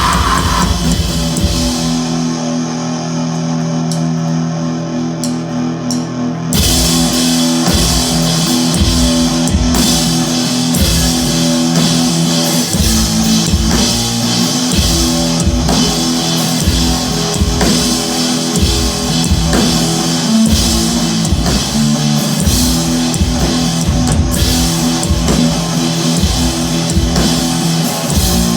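Live rock band playing: electric guitar and drum kit. About two seconds in, the drums and cymbals drop out and held guitar notes ring on their own, then the full band comes crashing back in about six seconds later.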